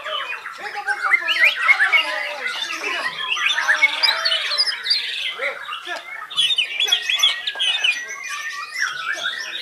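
Many white-rumped shamas singing at once: a dense tangle of overlapping whistles, trills and harsh chattering calls with no pause.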